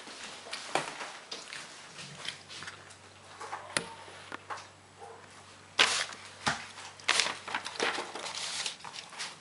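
Handling noise of a handheld camera: scattered clicks and knocks with short bursts of rustling, the loudest about six and seven seconds in.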